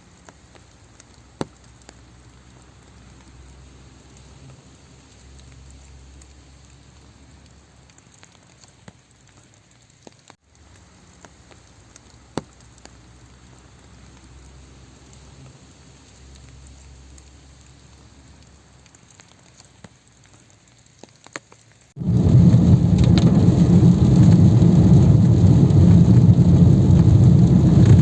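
Monsoon rain falling in a pine forest: a light, steady patter with a few sharp single drips. About 22 seconds in it switches suddenly to a much louder, deeper rush of heavy rain.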